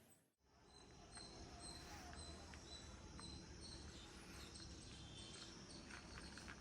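Faint outdoor ambience with birds chirping, short high notes repeating irregularly.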